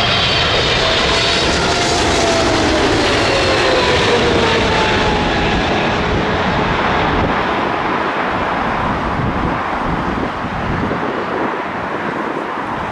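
Qatar Airways Cargo Boeing 777 freighter on final approach passing low overhead: the roar of its two GE90 turbofans, with a whine that falls in pitch as it goes over. The roar eases off in the second half as the aircraft moves away.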